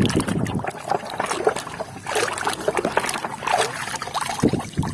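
Irregular splashing and trickling water with scattered clicks, as plastic toys are washed.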